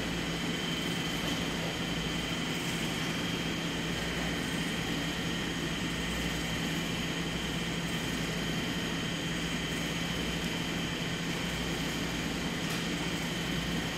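Steady machine hum: a low drone with a thin high whine held above it, without change.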